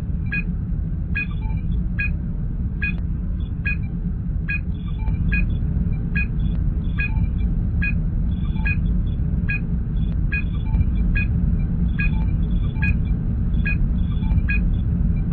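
Sci-fi starship bridge ambience: a steady low engine hum, with a short electronic sensor-scan blip repeating a little more than once a second and fainter pips between the blips.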